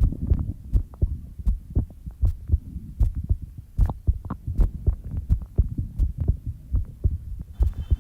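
A person's heartbeat picked up close against the body, a steady run of low thumps, many in lub-dub pairs, with faint clicks above them.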